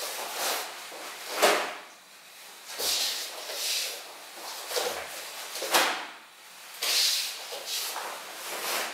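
Swishing and rustling as a wooden bo staff is swung and turned and the gi moves, with a few sharp thuds of steps on a wooden floor.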